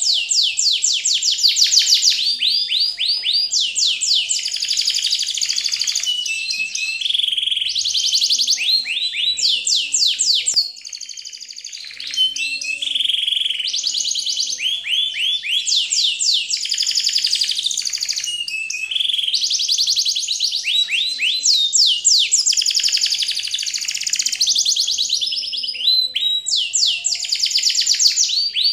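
High-pitched, bird-like chirping and trilling: quick runs of sweeping whistled notes, repeated over and over, with faint soft music underneath. There is a short lull about eleven seconds in.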